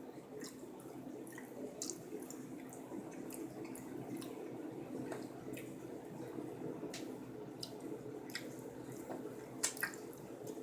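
Quiet, wet mouth sounds of someone eating durian: soft irregular clicks, smacks and squishes as the flesh is chewed, over a steady low hum.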